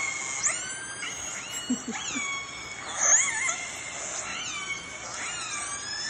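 Recorded calls of northern resident killer whales of the A clan, played back through a tablet's speaker: a string of overlapping pulsed calls, each gliding up and down in pitch, over a steady hiss. The loudest call comes about three seconds in.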